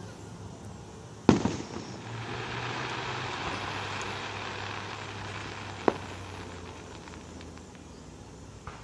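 Fireworks display: a loud bang about a second in with a rumbling tail, a few seconds of hiss as the burst spreads, then a second, sharper bang about six seconds in and a faint pop near the end.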